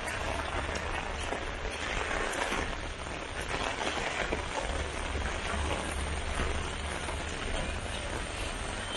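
Rain falling steadily: an even, unbroken hiss of drops on surfaces.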